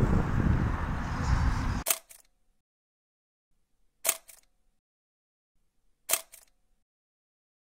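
Film SLR camera shutter firing three times, about two seconds apart, each a sharp double click. Before the first click, outdoor background noise cuts off abruptly.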